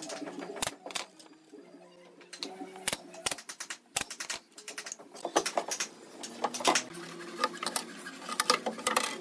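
Pneumatic brad nailer, fed by a coiled air hose, firing nails one at a time into the top of a plywood cabinet: a string of sharp snaps at irregular spacing, with the knocks of wood being handled in between.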